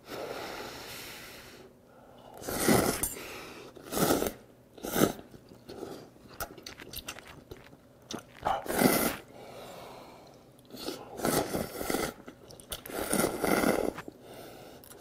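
Close-up eating sounds of ramen noodles being slurped in several noisy pulls, with wet chewing between them.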